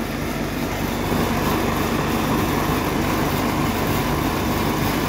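Electric motor and belt-driven generator running, a steady mechanical hum and rattle that grows louder over about the first second as the machine spins up, then holds level.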